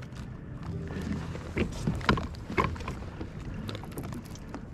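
Baitcasting reel being cranked to wind in line, with water lapping at a kayak and a few sharp knocks near the middle.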